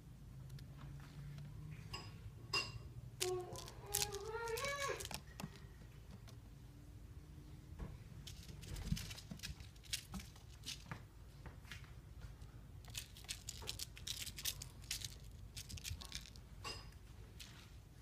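A kitten's paws and claws scuffling and scratching on a carpeted cat tree as it bats at a string toy: scattered soft clicks and scrapes throughout. About three seconds in, a drawn-out wavering vocal call lasting nearly two seconds.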